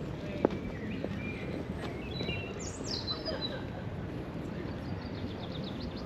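Small birds chirping over a steady hum of park background noise, with a high falling call near the middle and a rapid trill near the end. A single sharp tap sounds about half a second in.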